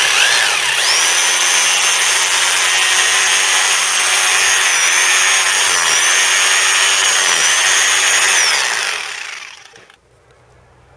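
Bosch GBH 2000 rotary hammer drill with a carbide chisel bit running as it chips out the mortar around a damaged brick. The motor whine comes up sharply at the start, dips in pitch briefly a few times under load, and winds down about a second before the end.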